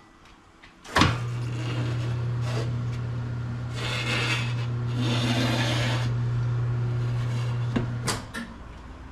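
Motor of a motorcycle tire changing machine switched on with a click, running with a steady hum for about seven seconds as it works the tire, with a scraping hiss in the middle, then switched off near the end.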